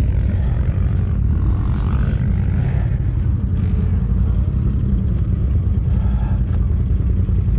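ATV engine running at low revs, a steady low rumble.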